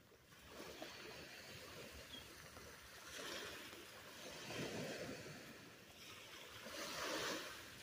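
Faint sea surf washing onto the beach, swelling and fading three times.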